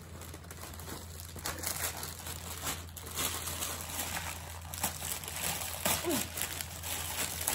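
Packaging crinkling and rustling in irregular bursts as items are handled and pulled from a cardboard box lined with paper shred.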